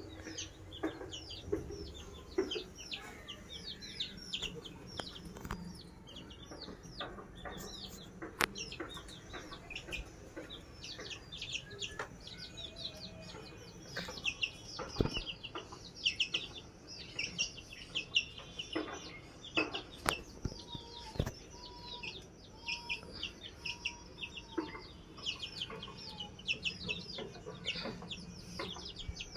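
Several young chicks peeping almost without pause in quick, high-pitched cheeps, with a few sharp knocks now and then.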